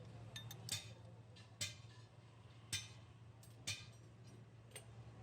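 Sharp knocks with a brief ringing tail, six of them about a second apart, over a steady low hum.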